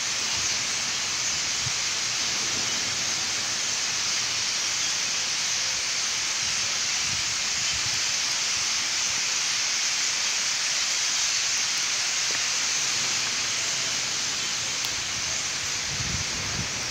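A huge flock of starlings calling all at once, a steady, dense chatter so thick it blends into one high hiss, as the roost gathers to leave.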